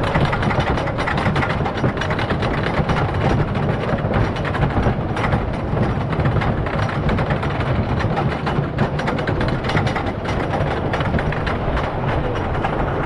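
Wooden roller coaster train being pulled up the lift hill by its chain: a steady mechanical clatter with rapid clicking of the anti-rollback dogs.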